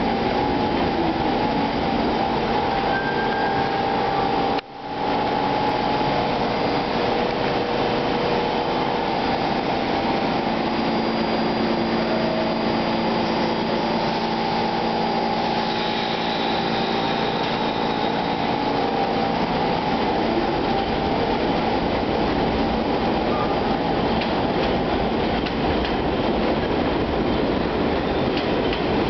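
New York City Subway R46 train running through an elevated station: a steady rumble of steel wheels on the rails, with several humming tones from the train held over it. The sound cuts out for a moment about five seconds in.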